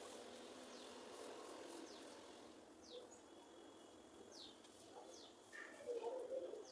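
Faint birds calling: short falling chirps about once a second, with a louder, lower call near the end.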